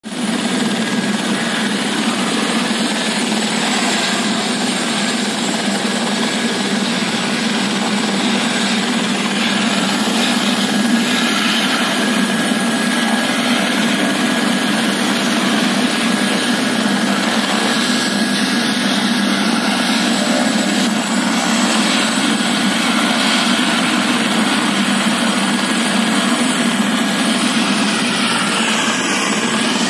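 Helicopter running steadily at a constant pitch: turbine whine over dense rotor and engine noise.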